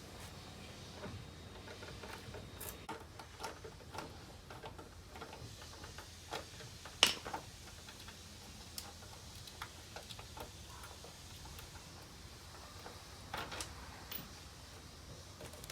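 Scattered light clicks and taps over a faint steady hum, with one sharp click about seven seconds in.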